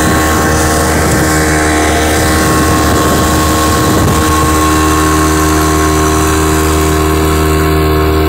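Outboard motor of a small open fishing boat running steadily at speed, with water rushing and splashing along the hull. The rushing noise is strongest in the first few seconds.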